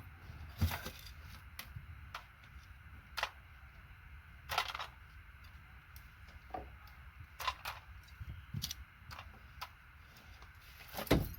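Scattered sharp plastic clicks and knocks of keyboard parts being handled and pulled apart, irregular, with the loudest knock near the end.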